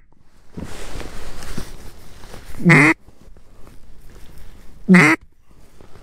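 Two short, loud single duck quacks about two seconds apart, blown on a duck call close by. A fainter rustling hiss fills the gap before the first quack.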